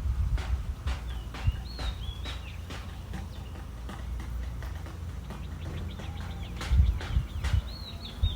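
Birds calling with short, swooping whistled notes in two bursts, over a steady series of sharp knocks and a low wind rumble on the microphone.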